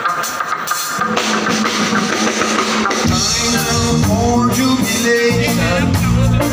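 Live band playing on electric guitar, electric bass and drum kit. The music turns fuller, with a heavy low end, about three seconds in.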